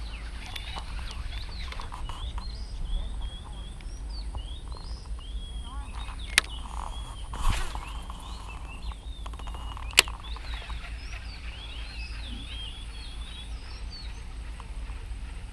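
Many small birds chirping steadily over a low rumble. Near the middle come two sharp clicks and a brief rush, from a baitcasting rod and reel being cast.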